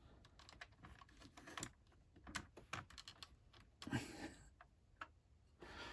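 Faint, scattered light clicks and taps, with a brief rustle about four seconds in: a 1/18 scale diecast model car being handled.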